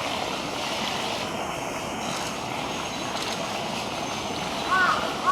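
A steady rushing background noise, with a bird starting to call in short repeated calls near the end.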